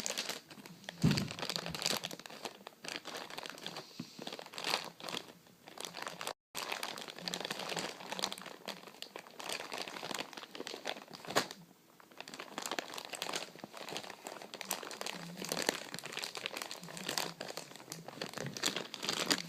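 Continuous irregular crinkling and crumpling of a handled material, a dense run of small crackles that stops dead for a moment about six seconds in.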